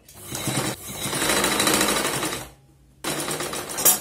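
Vidya sewing machine running, stitching fabric for about two and a half seconds, then stopping. About half a second later a rattling mechanical clatter starts again.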